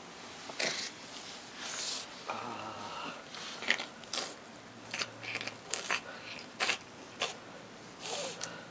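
Domestic cat licking and chewing at its own paw, drooling under the effect of catnip: irregular wet smacks and sharp little clicks from its mouth.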